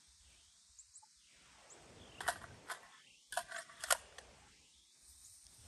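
Metallic clicks and rattles of an AR-15 rifle with a golf ball launcher attachment being handled and loaded. There are two sharp clicks a little over two seconds in, then a quick cluster of clicks around three and a half to four seconds.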